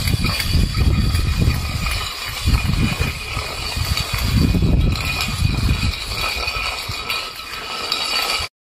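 Stainless-steel food bowl scraping and rattling across a concrete floor as a puppy with its head in it shoves it along while eating. It cuts off suddenly near the end.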